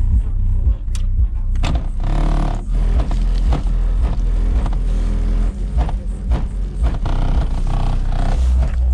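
Bass-heavy music played loud through a Kicker Q-Class L7 10-inch subwoofer in a custom horn enclosure tuned to 33 Hz in the car's trunk, with a deep, steady low end under a sharp beat. The owner finds it not hitting like it normally does and puts this down to the amp gain being set only about halfway and the bass boost all the way down.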